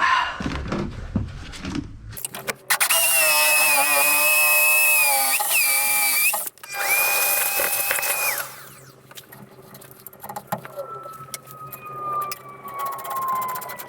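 Henry vacuum cleaner motor running in two bursts, a loud whine over rushing suction, then a long whine that falls slowly in pitch as the motor spins down after switch-off. A few low knocks come first.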